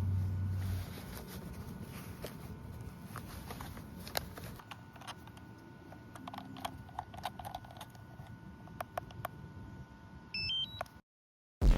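Faint steady electronic whine with scattered small clicks, then near the end a short run of quick electronic beeps stepping up in pitch.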